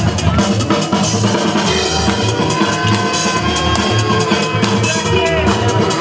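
Loud breakbeat music with a steady kick and snare beat.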